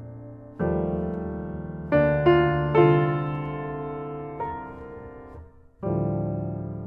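Solo piano playing slow chords, each struck and left to ring and fade. A cluster of louder chords comes a little after two seconds, and the level dips almost to nothing just before a new chord near the end.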